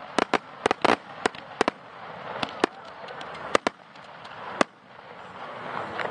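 Fireworks exploding: a quick run of sharp bangs in the first two seconds, then single bangs about once a second.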